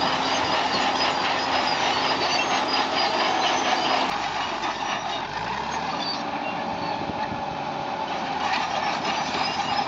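Fiat-Allis AD20 crawler bulldozer running with its engine going steadily; its pitch shifts slightly about halfway through.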